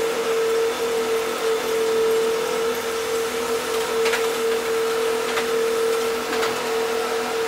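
Steady machinery hum with a constant mid-pitched whine, as of a car ferry's deck ventilation and engine-room machinery heard on deck. Three faint clicks come in the second half.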